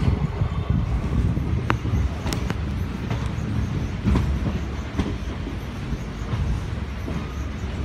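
Express train coaches rolling along the track, heard from aboard: a steady low rumble of the wheels with clacking over the rail joints and a few sharp clicks, the clearest about two seconds in.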